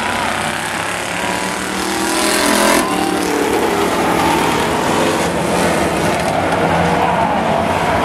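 Several demo-class race cars' engines running and revving around the track, their pitch rising and falling, with tyre noise from the pack.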